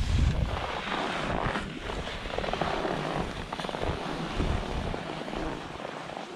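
Skis sliding and scraping over packed snow, with wind rumbling on the microphone.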